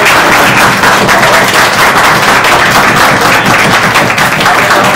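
A large group of people applauding, loud and continuous, with many hands clapping at once.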